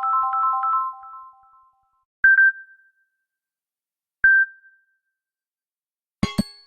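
Samsung Galaxy S10e stock ringtones (One UI 4.1) played in turn. A synthesized three-note chime phrase fades out about a second and a half in, then a single bright ding sounds twice, two seconds apart. Near the end a new tone starts with a quick run of sharp percussive knocks.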